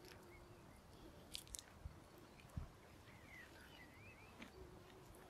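Faint scattered crunching steps on the grit of a paved path, with a bird chirping briefly a little past the middle.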